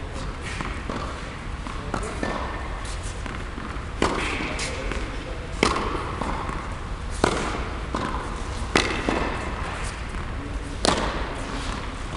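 Tennis balls being struck with rackets in a large indoor tennis hall: sharp pops about every one and a half to two seconds, each with a short echo, over the hall's steady background noise.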